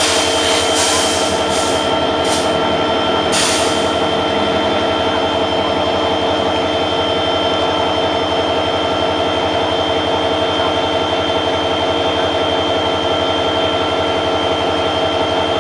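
CC 205 diesel locomotive engine running steadily with a constant hum, joined by four short hisses in the first four seconds.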